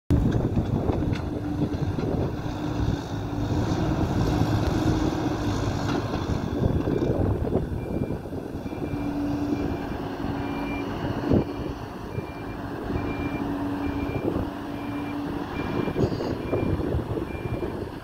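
Hidromek 102B backhoe loader's diesel engine working under load as it moves earth. From about seven seconds in, a reversing alarm beeps at a steady rate, and there is a single knock about eleven seconds in.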